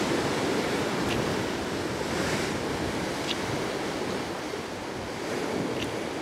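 Steady rush of white water breaking over rocks, with wind gusting on the microphone. A few faint short clicks sound over it.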